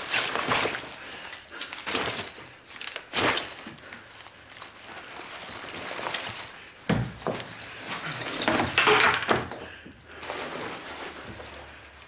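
A series of loud crashes and thuds, about five of them a few seconds apart, the longest coming about nine seconds in.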